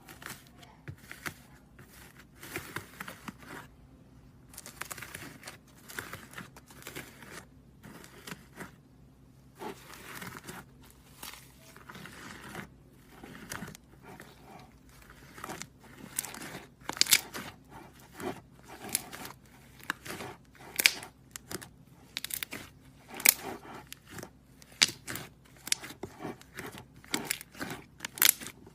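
Iceberg slime being pressed and squeezed by hand, its hardened crust cracking and crunching in many short sharp crackles that grow denser and louder about halfway through.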